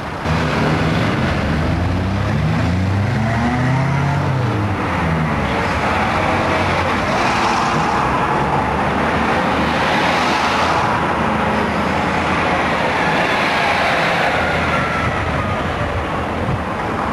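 Leyland National single-deck buses with Leyland 510 diesel engines driving past one after another, the engine note rising and falling in pitch as each bus pulls by, over steady road noise.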